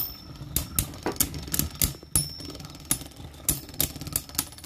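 Two Beyblade Burst tops, Roar Bahamut and Prominence Valkyrie, spinning against each other in a plastic stadium, their rims clashing in a rapid, irregular run of sharp clicks, some with a brief high ring.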